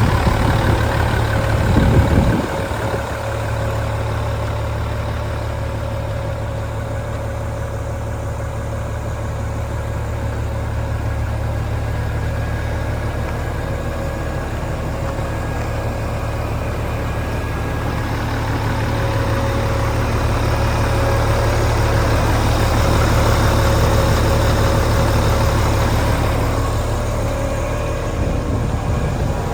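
Heavy diesel engine of a Daewoo concrete pump truck running steadily at idle, with a brief louder surge about two seconds in.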